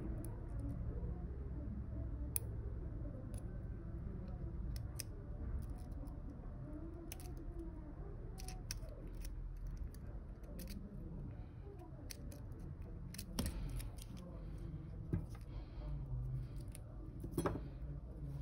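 Scattered small, sharp clicks and ticks of fine metal tweezers against the opened Apple Watch's case and display flex connectors, over a steady low hum.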